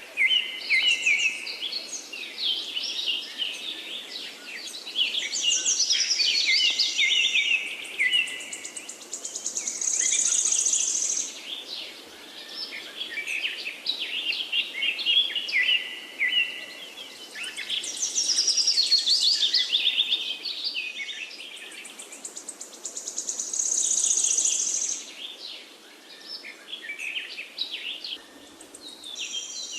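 Forest bird chorus: several birds singing and calling at once, overlapping chirps and rapid trills that swell and fade every few seconds. A high, buzzing trill rises and falls away about ten seconds in and again later.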